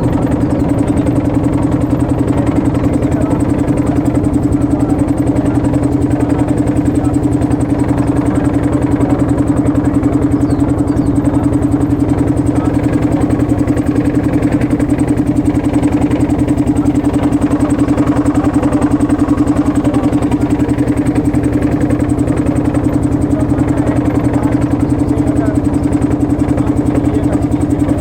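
Motorboat engine running steadily at an even speed, heard from on board.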